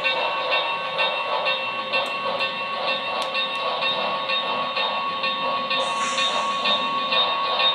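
Sound of an HO scale model steam locomotive: a steady rhythm of exhaust chuffs over a steady tone, with a short hiss of steam about six seconds in.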